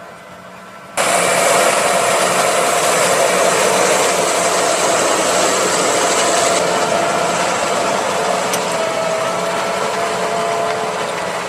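Fendt Vario 826 tractor ploughing with a Lemken Juwel 8 reversible plough: a steady engine hum, then about a second in it becomes suddenly much louder. From then on a dense rushing, scraping noise sits over steady engine tones.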